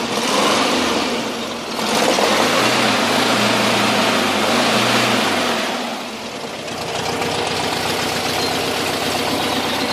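Air-cooled VW 1600 twin-port flat-four engine of a camper van running with a knock that shows only when the engine is cold and goes away once it warms up. The revs rise about two seconds in, hold for a few seconds, and drop back to a steady idle around six seconds in.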